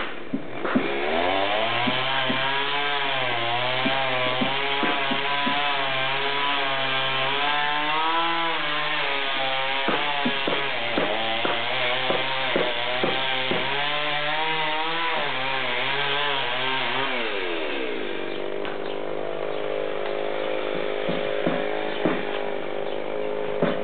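Chainsaw cutting wood, its engine speed wavering up and down as the chain bites, with a few sharp cracks in the middle. It then drops to a lower, steady idle for the last several seconds.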